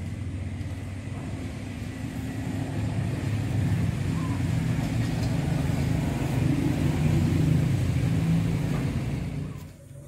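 A motor vehicle engine running close by, a low rumble that grows louder over several seconds and then stops abruptly near the end.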